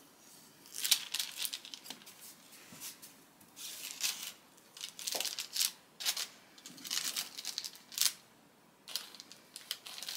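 A large kitchen knife cutting through a baked sheet-pan pancake, its edges nice and crispy, and pressing down onto the parchment paper beneath: a series of short crinkling, scraping strokes.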